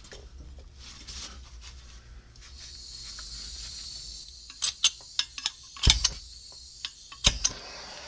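Gas torch flame hissing steadily as it heats the steel inner sleeve of a pivot arm bushing to soften the bushing's adhesive. The hiss sets in a little over two seconds in, with scattered sharp clicks and two heavier knocks in the second half.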